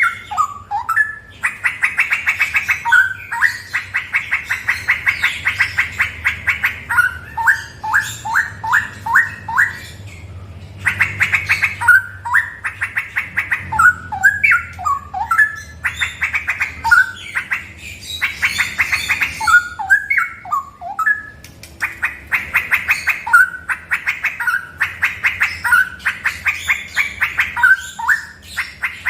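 Straw-headed bulbul (cucak rowo) singing loudly in rapid runs of repeated rich notes, the long rolling 'ropel' phrases prized by bird keepers, with two brief pauses between phrases.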